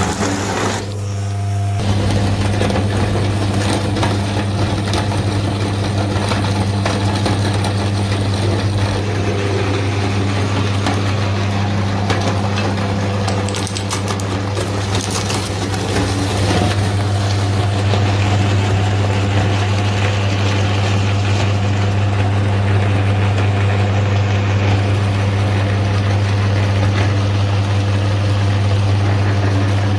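Electric kitchen grinder's motor running steadily with a strong, even low hum.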